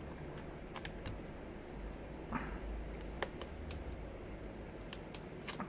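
Scattered small clicks and a brief scrape of the plastic front frame of a Snooper S320 sat nav being pried away from its taped-down screen.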